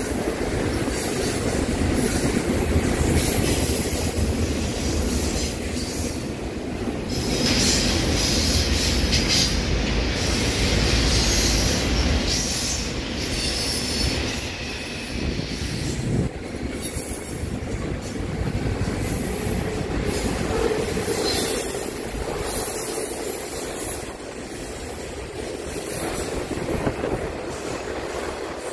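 Double-stack container well cars rolling past: a steady rumble and clatter of steel wheels on the rails, with high-pitched wheel squeal coming and going.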